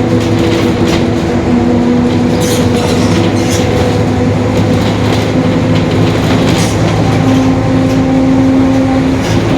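Mercedes-Benz OF-1721 city bus under way, its differential growling with a steady whine over the running engine and road noise, the whine rising a little in pitch near the end. A few brief rattles come through.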